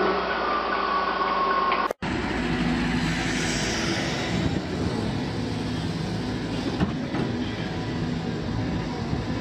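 Hydraulic excavator's diesel engine running steadily close by, with a sudden break for an instant about two seconds in before it carries on.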